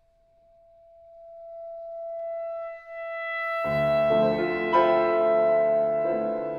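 A clarinet holds one long note that swells from almost nothing into a steady crescendo. A little over halfway through, the piano comes in with full chords beneath it, and both carry on together.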